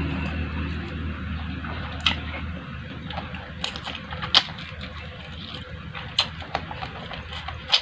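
Close-up eating sounds: chewing and mouth noises with scattered sharp smacks and crunches, a few at a time. A low hum underneath fades out about two and a half seconds in.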